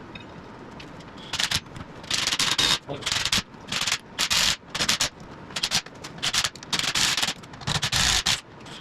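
Hand-tool work on metal: short rasping strokes in quick, irregular succession, starting about a second in.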